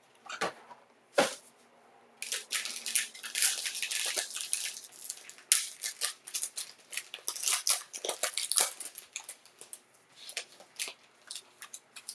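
Plastic wrapping on a trading-card box and pack being torn and crinkled open, a dense crackling rustle through the middle with sharp clicks of handling before and after.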